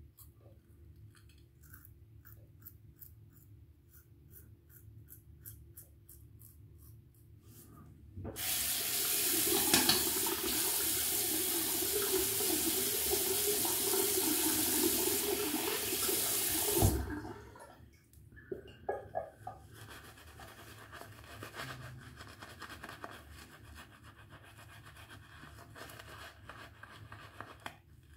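A Merkur Futur safety razor scraping through lathered stubble in short, regular strokes, then a tap running for about eight seconds as the razor is rinsed. A few sharp knocks follow as the water stops, then quieter sound.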